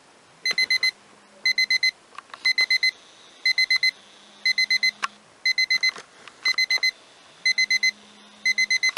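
Smartphone alarm beeping in quick groups of four high beeps, about one group a second, with a low buzz coming and going three times.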